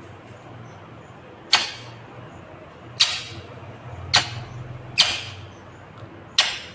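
Indian ringneck parakeet giving short, shrill screeches, five in all, about one to one and a half seconds apart.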